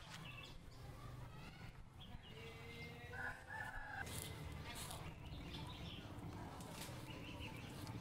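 A rooster crowing once, a held call about two and a half seconds in that lasts a little over a second.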